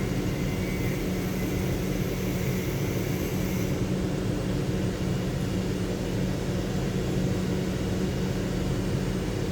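2007 Lincoln Town Car's 4.6-litre V8 idling with a steady, even hum: running without a misfire now that the failed number 7 ignition coil has been replaced.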